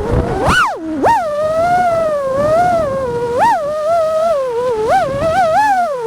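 Motors and propellers of a 5-inch FPV freestyle quadcopter (Axisflying 2207 1860KV brushless motors on 6S, HQ J40 props) whining, the pitch swinging up and down with the throttle. There are sharp upward swoops about half a second in, at about a second, and again near three and a half and five seconds.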